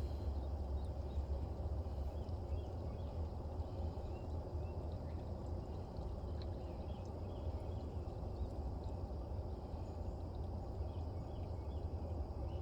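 Oil mixed with water draining in a steady stream from a Freightliner Classic's engine oil pan into a drain pan, over a low steady rumble. The water in the oil is the sign of a leaking head gasket.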